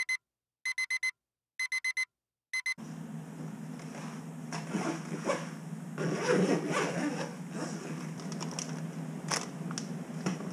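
Digital alarm clock beeping in quick groups of four, about once a second, stopping about three seconds in. Then rustling and light knocks as things are handled on a kitchen counter, over a steady low hum.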